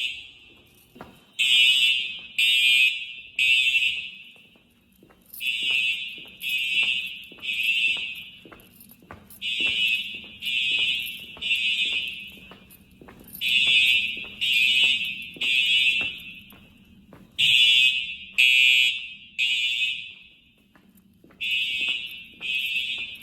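Simplex TruAlert fire alarm horns sounding the code-3 temporal evacuation pattern: three loud blasts, a pause, and again, about every four seconds. Each blast echoes and dies away in a large reverberant room.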